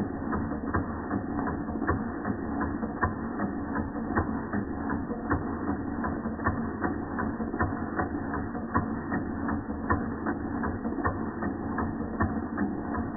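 Georges Carette vertical model steam engine (model 2317) running steadily under steam: an even rhythm of light mechanical clicks, a few a second, over a steady background rush.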